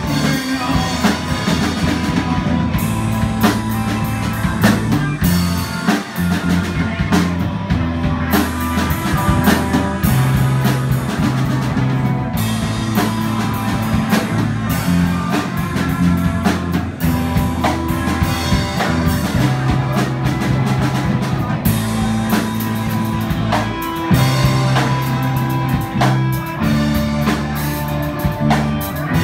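Live rock band playing an instrumental passage: a drum kit at a steady beat with cymbals, over held low bass notes that shift every second or two, with the electric guitars quiet in the mix.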